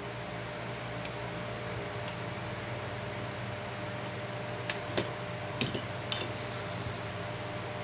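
A few light clicks and clinks of small tools and phone parts being handled during a repair, clustered in the second half, over a steady hum.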